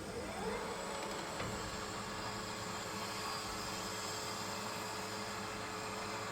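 Conventional metal lathe motor and spindle coming up to speed, its pitch rising in the first second, then running with a steady buzzing hum.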